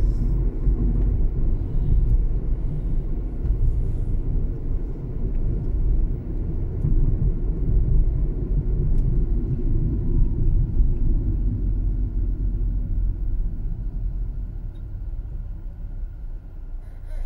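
Steady low road rumble of a car driving, heard from inside the cabin: tyre and engine noise, easing off a little in the last few seconds.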